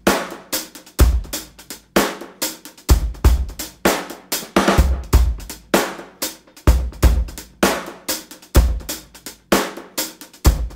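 Background music led by a drum kit: a steady beat of kick drum, snare and cymbal hits.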